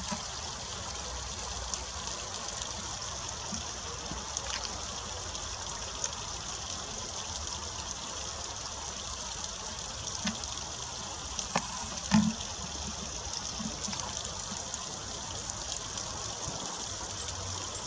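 Water trickling steadily down a wet rock face, with two short sharp clicks about twelve seconds in.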